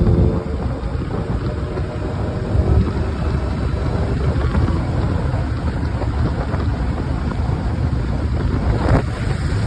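Supercharged 6.2-litre V8 of a Hellcat Durango rumbling low and steady through a Borla ATAK cat-back exhaust as the SUV drives, with wind buffeting the microphone. A brief knock about nine seconds in.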